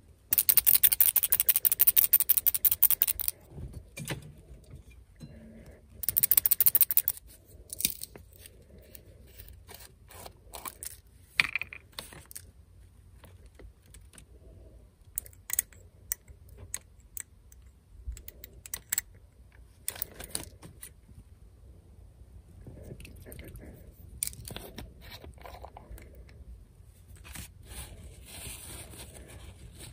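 Small glass hobby-paint jars being handled on a workbench: a rapid clinking rattle of paint being mixed in a jar for about three seconds at the start and again briefly around six seconds, then scattered clicks of jar lids and glass. A faint steady hiss comes in near the end.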